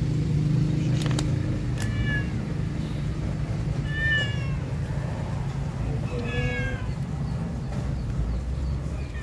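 A wet, soapy cat meowing in protest at being bathed: three high-pitched meows about two seconds apart, the last the longest and falling in pitch, over a steady low hum.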